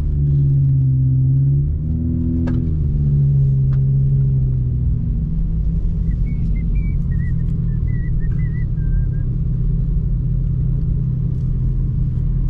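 Car engine and road noise heard from inside the moving car: a steady engine note that dips and rises about two seconds in, then settles into a low steady rumble after about five seconds.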